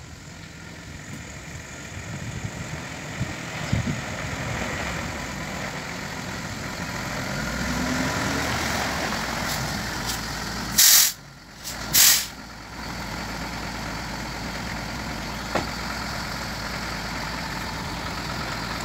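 Heavy diesel truck engine running steadily, with two loud, short hisses of air about a second apart just past the middle.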